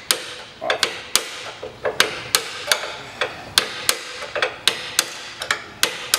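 Hammer striking metal in quick, uneven blows, about three a second, while working a stuck part of a motorcycle chassis loose.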